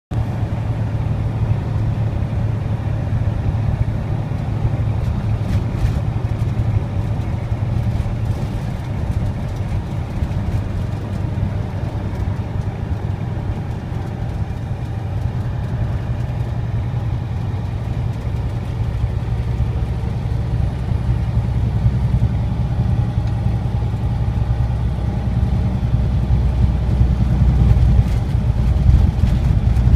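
Heavy truck's diesel engine droning steadily with road noise, heard from inside the cab while driving; the low drone grows louder over the last third.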